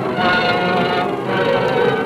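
Orchestral soundtrack music playing sustained chords.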